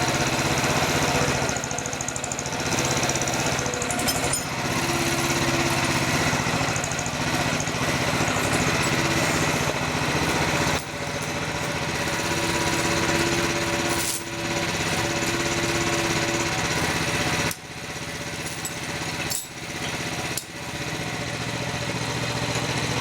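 Mini excavator's engine running steadily under load. A higher steady tone comes in twice, and the sound drops and dips for a few seconds near the end.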